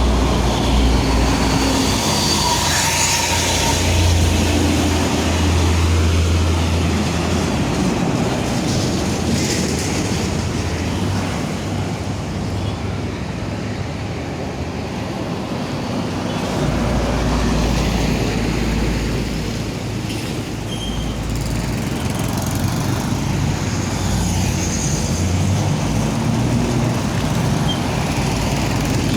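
Heavy road traffic: large buses driving past with deep engine rumble. One loud pass comes at the start and another about 17 seconds in.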